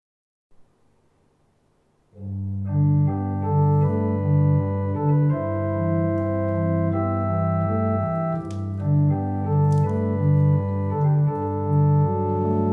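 Electronic organ playing slow sustained chords over a low repeated accompaniment note, entering about two seconds in after a faint hiss.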